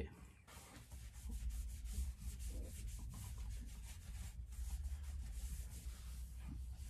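Microfibre cloth rubbed back and forth on a motorcycle's chrome exhaust header pipe, wiping it clean, in quick repeated strokes that start about a second in.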